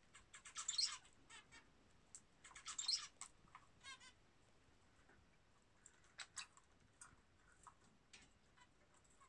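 Lovebirds chirping softly: quick runs of short, high chirps near the start and again around three seconds in, then scattered single chirps.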